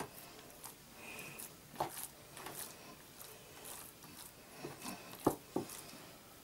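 Faint, scattered taps and rustles of hands pressing and patting soft bread dough into a loaf tin, with fingers knocking lightly on the tin. The sharpest knock comes about five seconds in.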